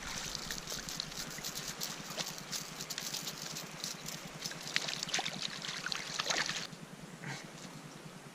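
Small mountain stream trickling and splashing close by, a dense hiss full of small crackling splashes. The nearer splashing drops off about a second and a half before the end, leaving a quieter flow.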